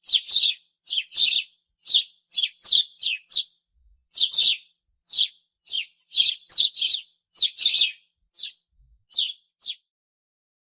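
House sparrow chirping: a run of short, sharp chirps, two or three a second with brief gaps, stopping shortly before the end.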